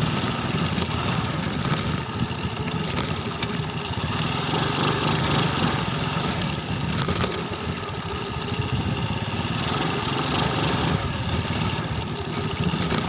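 Motorcycle engine running steadily in third gear at low road speed on a rough unpaved road, mixed with tyre and wind noise and a few brief rattles.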